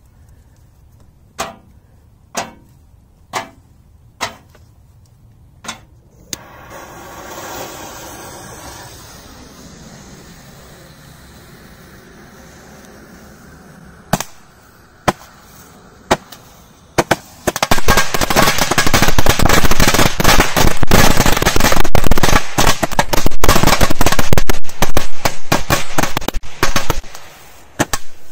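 Firecracker bangs, single and sharp, about a second apart, then a short hiss. Then a handheld firework tube fires at an oven: a few single bangs, then a long, dense barrage of rapid bangs lasting about ten seconds.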